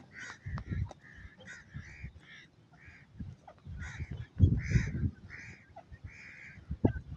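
Francolins calling: a run of short, soft calls, two or three a second. Low rumbles on the microphone come and go under the calls, the loudest about four and a half seconds in.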